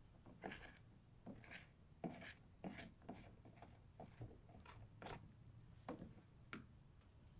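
Faint, irregular plastic clicks and scrapes as the pump top is screwed down onto a plastic garden pump sprayer tank, closing it up.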